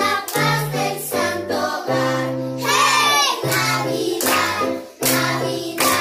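A group of children singing a song to an electronic keyboard accompaniment with a steady bass line, clapping along on the beat. A falling swoop sounds about halfway through.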